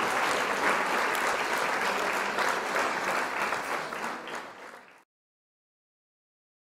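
Audience applauding, a dense patter of many hands clapping that fades and cuts off about five seconds in.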